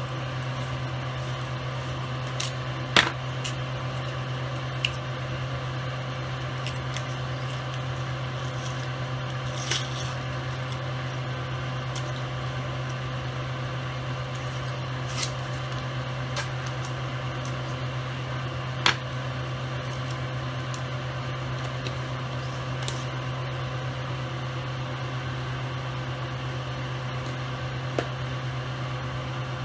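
A steady low electrical hum from a running kitchen appliance or fan, with a few sharp, widely spaced clicks and taps from handling a plastic spice shaker and its cap.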